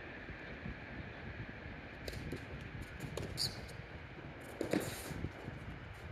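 Tennis serve struck across the court: a faint pock of racquet on ball about three-quarters of the way through, with a few quieter taps before it, over steady background noise.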